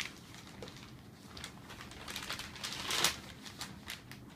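A large sheet of paper rustling and crinkling as it is folded and pressed flat, with a longer, louder rustle about three seconds in.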